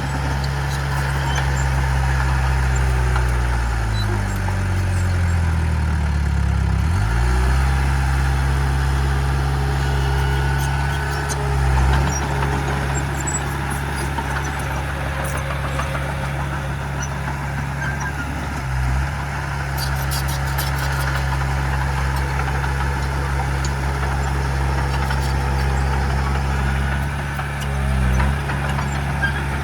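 Heavy diesel engine of earthmoving equipment running steadily. Its pitch sags and recovers about four to seven seconds in, and it briefly surges three times later on.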